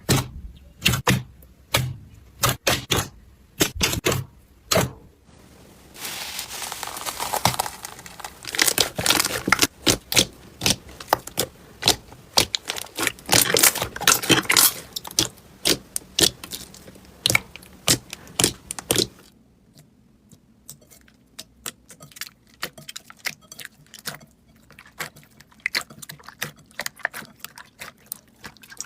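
Slime being squeezed and pressed by hand, giving sharp pops and crackles. The crackling thickens into a dense run for several seconds, then gives way to finer, quieter clicks.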